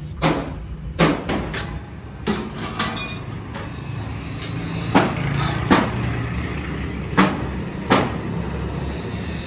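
Stainless-steel sheet-metal stove parts knocking and clanking as they are handled and set down: about nine sharp knocks, spaced irregularly, over a steady low hum.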